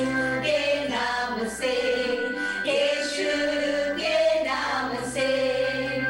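A church choir of women and men singing a gospel song together, the women's voices loudest, in held, flowing phrases.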